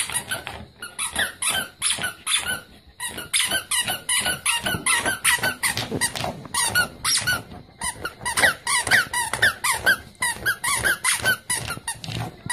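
A squeaky toy squeaking rapidly and unevenly, many short high squeaks in quick succession, as a corgi puppy bites and paws at it.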